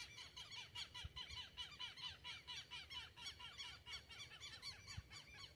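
Southern lapwing (quero-quero) calling faintly: a fast run of repeated harsh notes, about six a second.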